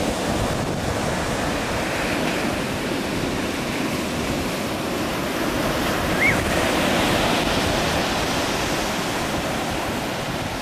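Ocean surf breaking on a sandy beach: a steady wash of waves with wind noise on the microphone. A wave crashes louder about seven seconds in, just after a short high cry.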